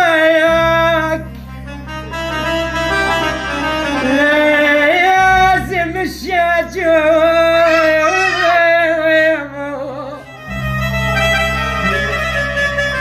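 Slow, mournful song: a voice holds long, wavering notes with vibrato over low sustained backing chords, which drop out for a few seconds in the middle.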